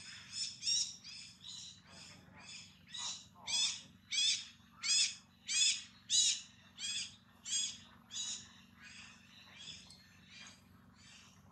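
An animal call in a long series: a bright pitched note repeated about twice a second, growing louder to a peak around the middle and then fading as the notes slow down.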